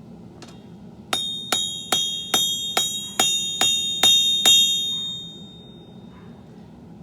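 Hammer blows on an anvil during blade forging: nine ringing strikes about two and a half a second, the last ones loudest, with the metallic ring dying away over a second or two after the final blow.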